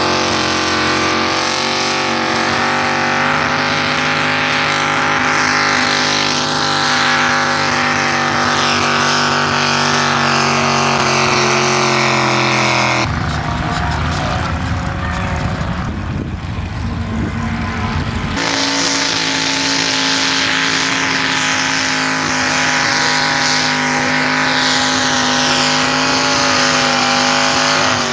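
Tractor-pull tractor engines running hard under load while dragging the weight sled: a loud, steady multi-tone engine note that sinks slowly in pitch over the first dozen seconds as the load grows. About thirteen seconds in, the engine note gives way to an even noise for about five seconds, then a steady high engine note returns.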